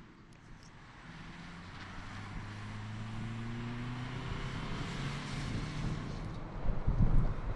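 2012 Toyota Yaris driving by, its engine note rising slowly in pitch and growing louder as it comes closer, with a low rumble loudest about seven seconds in.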